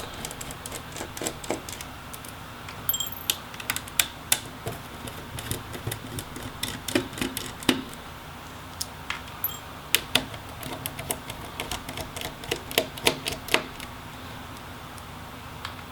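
Irregular small clicks and light metallic taps of a small screwdriver backing screws out of a laptop motherboard, with the tiny screws being handled and set down. The clicks come singly and in quick runs.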